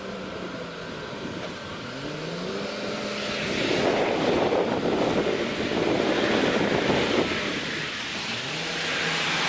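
Heavy logging truck's engine running and rising in pitch as it picks up revs, growing louder and rougher through the middle, then easing off near the end.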